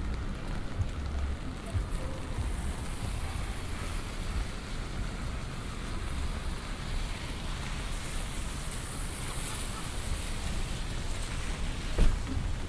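Rainy city street ambience: a steady hiss of rain on an umbrella and traffic on wet roads. A sharp thump about twelve seconds in.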